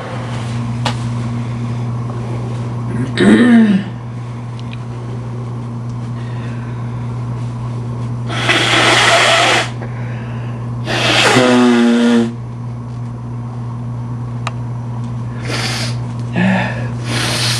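A person sneezing several times: a short, loud sneeze about three seconds in, two longer, fuller bursts around eight and eleven seconds in, and shorter ones near the end, over a steady low hum.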